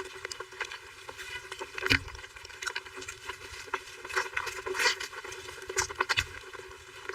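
Close-miked chewing and mouth sounds of someone eating soft cake: irregular wet clicks and smacks, the loudest about two seconds in and again near five seconds.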